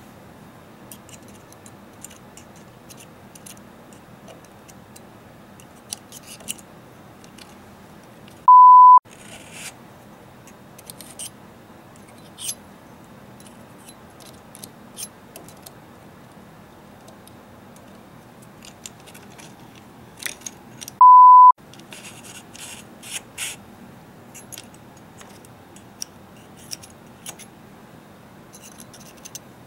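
Two loud half-second 1 kHz censor bleeps about twelve seconds apart, each with the surrounding sound cut out. Between them, faint clicks and scrapes of small metal parts being handled: an end plate and sling loop being fitted onto an AR-15 buffer tube.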